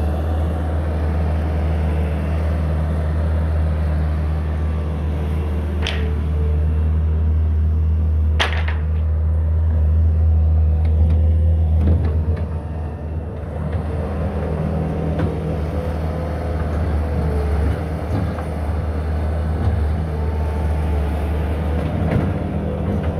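Bobcat skid-steer loader's diesel engine running steadily with a deep hum as the loader pushes and levels loose soil with its bucket. Two sharp knocks come about six and eight and a half seconds in, and the engine note eases briefly around twelve seconds.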